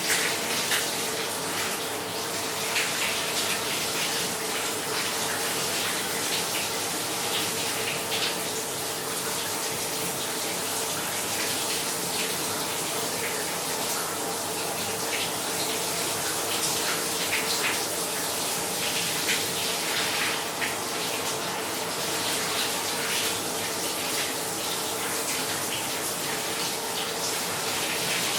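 Shower running steadily: a continuous hiss of falling water spray with irregular small spatters and splashes.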